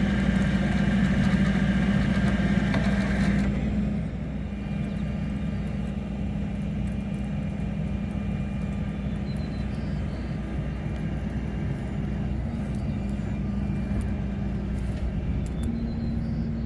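Motor vehicle running steadily: a low rumble with a constant hum, with brighter higher noise that drops away about three and a half seconds in.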